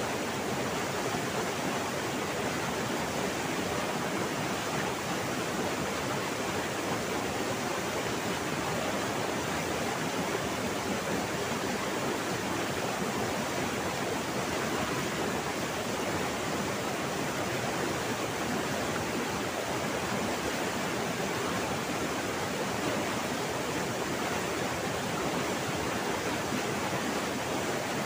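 Steady, even rush of a fast-flowing river pouring over a waterfall.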